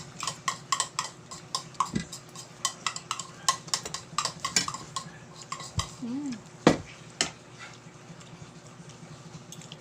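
Cutlery clinking and scraping against a dish while noodles are eaten, in quick irregular taps for about seven seconds, then it goes quiet.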